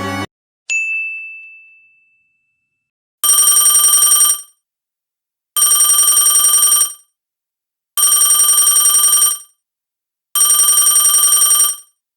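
A telephone ringing four times, each ring a trilling bell lasting just over a second with short gaps between. Just before the first ring there is a single short chime that fades away.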